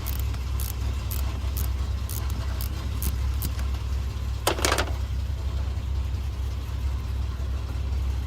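Hand tool clicking on the car battery's positive terminal as it is loosened and disconnected, light metal clicks about two a second, then a louder metallic clank about four and a half seconds in.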